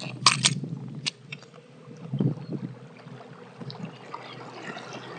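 Water lapping and splashing against a small boat, with a few sharp clicks about a second in and a faint steady hum under the water noise.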